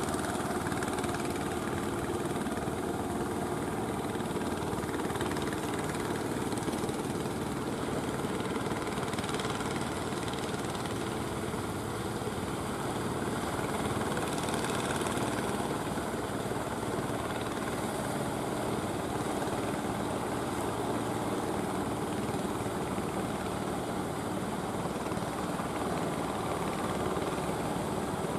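Engine of a wooden fishing boat running steadily under way, a continuous even drone.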